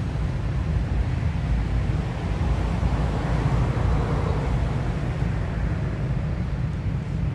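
Steady low rumble with a faint hiss above it, with no distinct pitched sound or clicks.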